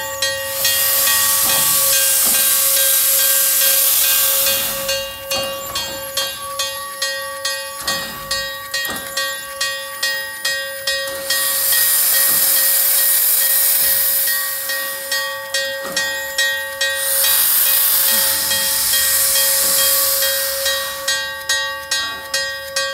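Canadian National #7470, a 0-6-0 steam switcher, venting steam through its open cylinder cocks as it creeps along: three long bursts of hissing, each several seconds. Background music of plucked strings plays underneath.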